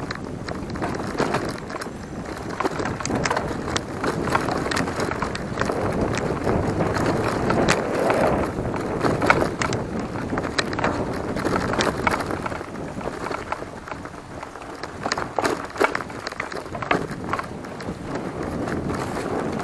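Giant Talon 3 hardtail mountain bike ridden along a rough trail: steady tyre noise on the dirt with frequent rattles and clacks from the bike over bumps.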